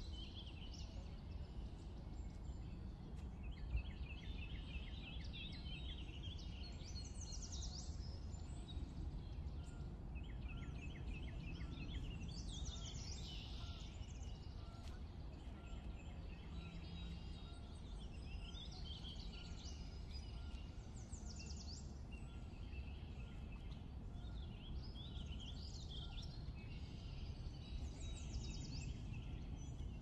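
Birds singing and calling, with repeated rapid trills and chirps, over a steady low rumble of outdoor ambience.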